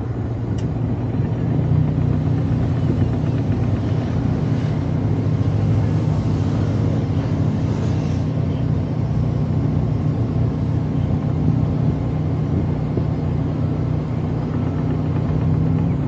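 An engine running steadily, a low even drone.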